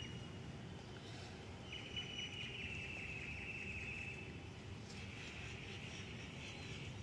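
A high, rapidly pulsing animal trill lasting about two and a half seconds, falling slightly in pitch, then a fainter, buzzier trill near the end, over a steady low background hum.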